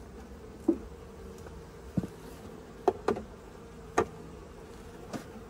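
Honeybees buzzing as a steady hum around an open hive, broken by about half a dozen sharp wooden knocks and clicks as the hive's boxes and frames are handled.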